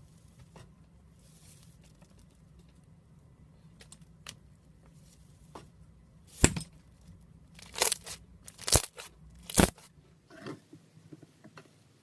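Slime being handled: a few faint clicks, then four loud, sharp crackling pops about a second apart and a weaker one after them.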